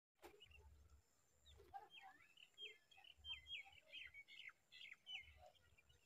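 Tailorbird nestlings begging: a quick run of faint, short, high chirps, many in a row, beginning about a second and a half in.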